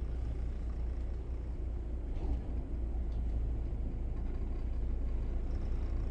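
Twin diesel engines of a Bayliner 4788 motor yacht running steadily in reverse as the boat backs down: a deep, even low rumble.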